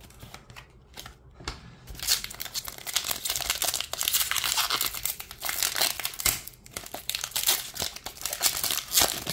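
Foil booster pack wrapper of a Pokémon card pack crinkling and tearing as it is ripped open by hand. A few light clicks come first, and the crinkling starts about two seconds in.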